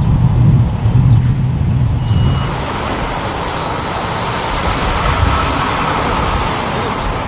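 Peterbilt semi truck's diesel engine rumbling as the tanker rig pulls away. After about two and a half seconds the rumble gives way to a steadier, softer rush of road noise, with a brief high squeak just before the change.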